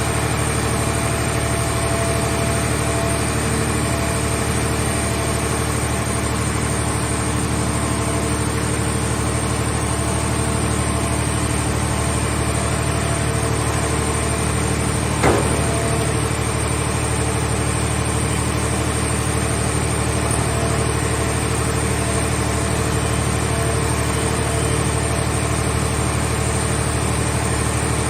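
Engine of a towable hydraulic scrap car baler running steadily at a constant speed, with one brief sharp knock about halfway through.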